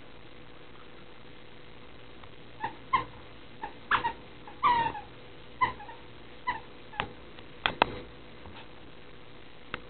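Small dogs playing tug-of-war, giving a run of short high yips and whines, one whine wavering and falling, with a few sharp clicks among them. The calls begin about two and a half seconds in and die away near the end.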